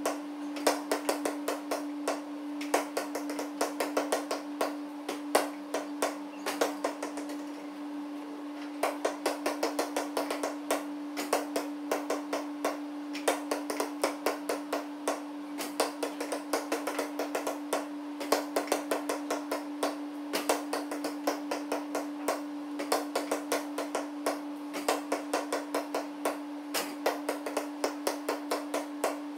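Basketball bouncing on a gym floor, a quick run of knocks several times a second with a short lull about a third of the way in, over a steady low hum.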